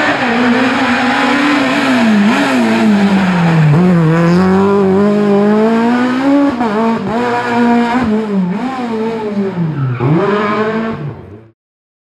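Renault Clio rally car's engine at full throttle, revving up through the gears as it pulls away. Its pitch climbs and drops sharply at each shift, with a deeper dip near the end, then the sound cuts off abruptly.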